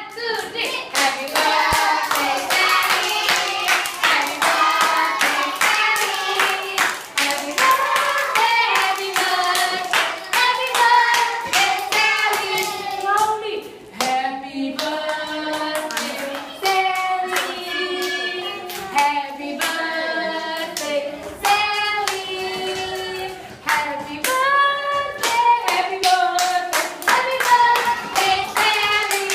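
A group singing a birthday song, with hands clapping along to the beat throughout.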